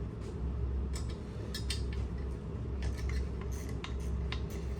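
Scattered light metallic clinks and taps of hand tools and screws against metal parts, over a steady low hum.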